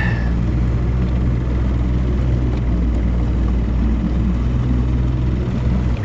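Boat motor running steadily underway at about 6 miles an hour: an even low hum with a hiss over it.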